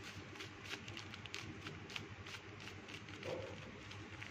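Faint rustling and light ticks of hands shaking chicken masala powder over raw chicken pieces in a steel bowl.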